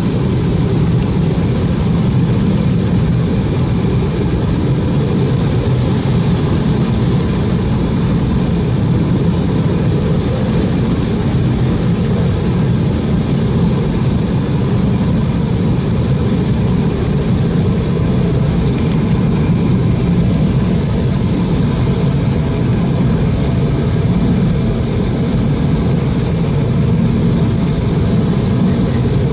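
Steady cabin noise inside an Airbus A319 airliner in flight on its approach, a deep even rumble of engines and airflow with a faint steady tone above it.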